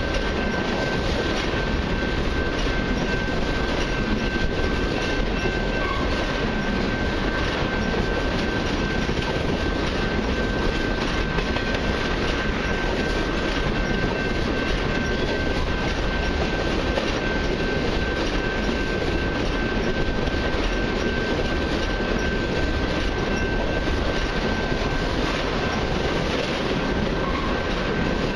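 Freight train of empty crude-oil tank cars rolling past close by: steady rumble and clatter of steel wheels on the rail joints, with a thin, steady high-pitched tone over it.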